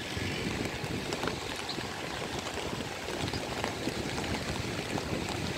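Steady rushing noise of rain and surf breaking on the beach, with no distinct events.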